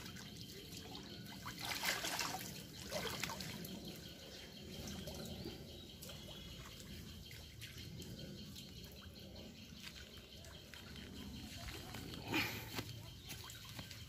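Faint pond water sloshing and trickling around a person wading and working in shallow water, with a few louder splashes about two seconds in and again near the end.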